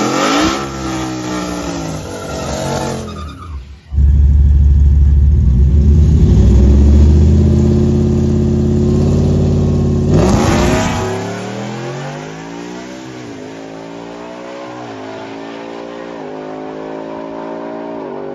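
A Ford F-150 pickup's 5.0-litre (302) V8 is revved and then held at high revs for about six seconds. About ten seconds in it launches down the drag strip, climbing and dropping in pitch through several upshifts and fading as the truck pulls away.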